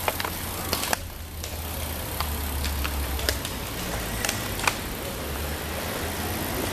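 A group of road cyclists riding off past the microphone: a steady low rumble with scattered sharp clicks from the bikes.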